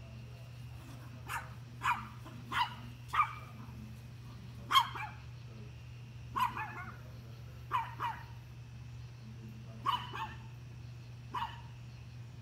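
Dog barking at a deer: about a dozen short barks at uneven intervals, some in quick pairs, over a steady low hum.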